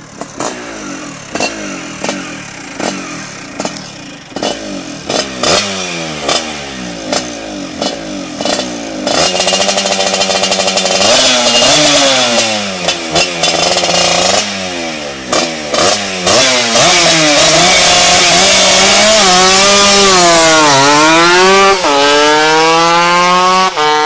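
Tuned two-stroke Vespa scooter engine at a drag-race start: short sharp revs of the throttle, then held at high revs. About two-thirds in it launches, the engine pitch climbing with sudden drops at the gear changes as it accelerates away.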